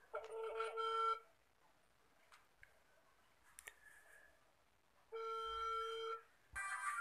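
Mobile phone ringback tone while a call rings unanswered at the other end: a steady buzzing tone about a second long, heard twice, about five seconds apart.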